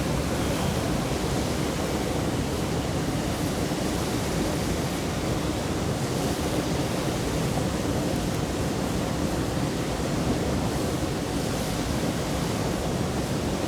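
Mountain stream flowing steadily, a constant rushing murmur of water.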